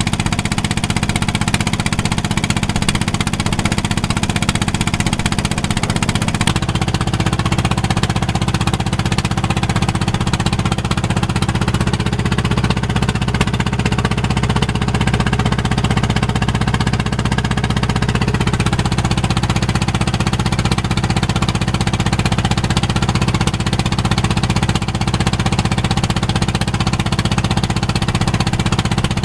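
A boat's engine running steadily, heard from on board, with a steady low drone. Its tone shifts about six seconds in and again near the middle.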